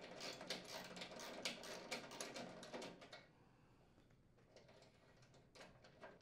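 Ratchet with a 7/16 inch socket clicking rapidly as it unthreads a nut, stopping about three seconds in; a few faint clicks near the end.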